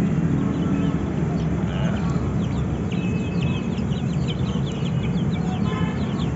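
Domestic chicks peeping, a rapid run of short high chirps that thickens from about halfway through, over a steady low hum.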